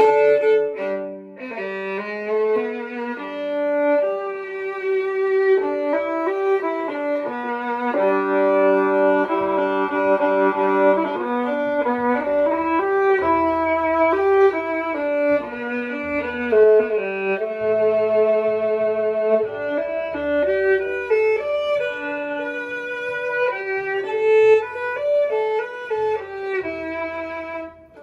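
Violin bowed in a melody of sustained and moving notes, played through a wireless pickup into a Schertler acoustic amplifier, so the live instrument and the speaker are heard together.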